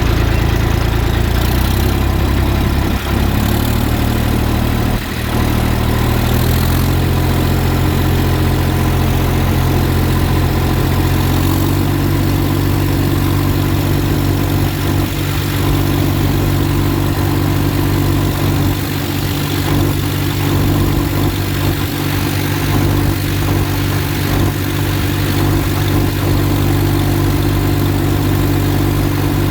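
Massey Ferguson 1035 tractor's three-cylinder diesel engine running under ploughing work. Its pitch shifts a few times in the first dozen seconds, then holds steady.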